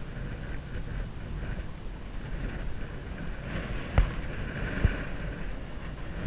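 Wind buffeting a helmet-mounted camera's microphone during a ride, a steady rumbling noise, with two sharp knocks under a second apart about two-thirds of the way in.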